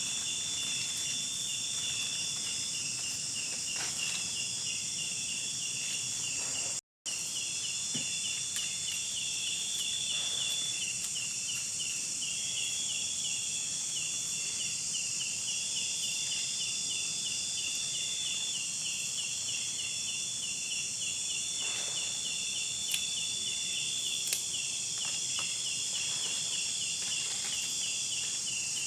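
Insects calling steadily: a continuous high hiss with a fast, evenly repeating chirp beneath it. The sound cuts out for a moment about seven seconds in.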